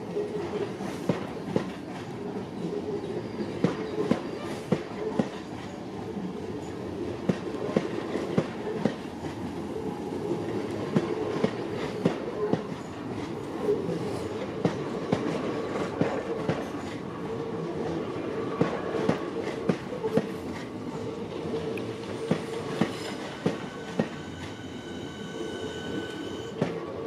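Southeastern Class 465 Networker electric train running past along the platform, a steady rumbling drone with wheels clicking irregularly over rail joints. A thin high whine comes in near the end.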